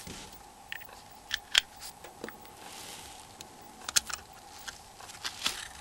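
Small sharp clicks and taps of a Nokia 6300's plastic housing parts being handled and pressed together, about eight of them at irregular intervals over a faint steady hum.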